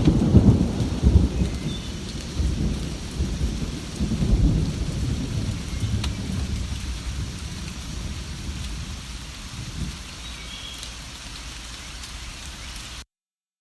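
Steady rain falling, with a long roll of thunder that rumbles loudly at first and fades away over about ten seconds. The sound cuts out abruptly near the end.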